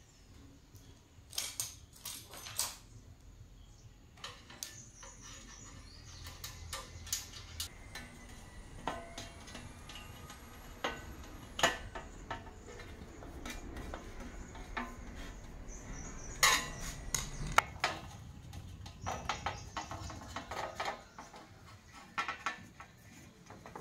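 Small metal tools and parts clinking and tapping on a workbench during electronics repair: irregular sharp clicks and clinks, some louder knocks about a third and two-thirds of the way in, over a faint steady hum.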